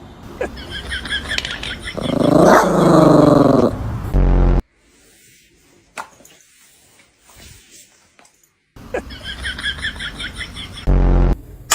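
A dog giving one drawn-out call that rises and then falls in pitch, about two seconds in. Short, loud low blasts come at about four seconds and again near the end, with a near-quiet stretch in the middle.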